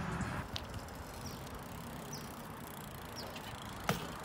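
A BMX bike rolling on pavement, a steady tyre hiss, with a light click about half a second in and a sharp clack near the end.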